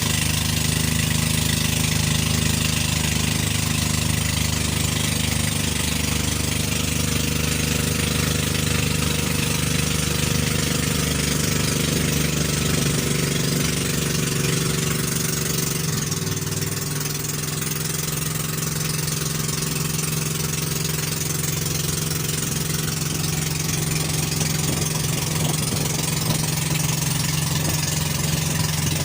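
Pump boat's engine running steadily under way, with an even hiss over it.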